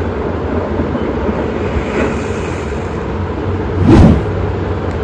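A low, steady rumbling drone with one loud whooshing swell about four seconds in.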